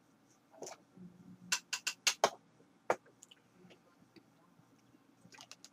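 A scatter of short, sharp clicks and taps, with a quick run of about five close together in the middle.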